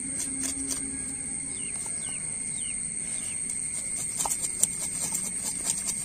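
Knife scraping the scales off a large fish on grass: a run of short rasping scrapes and clicks, thickest in the second half. A steady high whine and a few short descending chirps lie under it.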